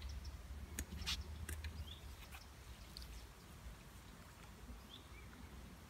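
A few short sharp clicks in the first second and a half over a steady low rumble of wind, with faint short bird chirps, as a hooked carp is played in to the landing net at the water's edge.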